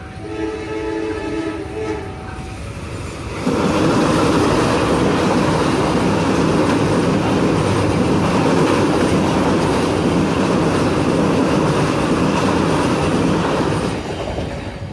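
A CC201 diesel locomotive's horn sounds in short blasts of several tones together for about the first two seconds. About 3.5 s in, the loud rumble and wheel clatter of a passenger train crossing a steel girder bridge at speed cuts in, holds steady, and fades near the end as the train passes.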